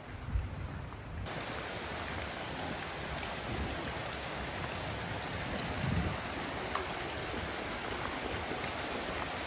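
Steady rush of river water flowing, cutting in suddenly about a second in after a few low thumps.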